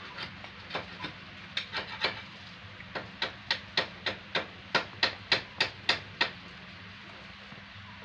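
A quick series of sharp taps or knocks, about three to four a second, growing louder and stopping about six seconds in.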